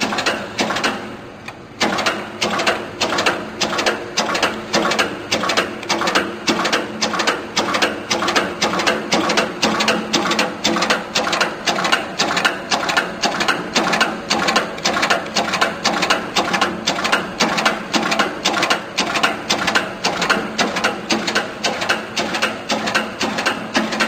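Molex power crimping press cycling over and over, its ram striking about three times a second over a steady hum. The strokes get louder and settle into an even rhythm about two seconds in.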